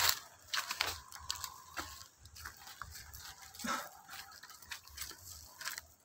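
Footsteps crunching through dry fallen leaves and twigs, with irregular crackles and rustles.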